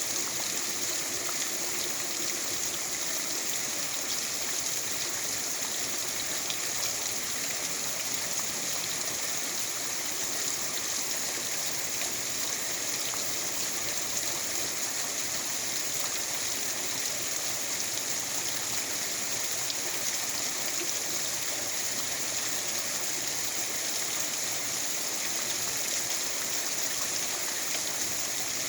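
Steady rain falling, a continuous even hiss of water that does not let up.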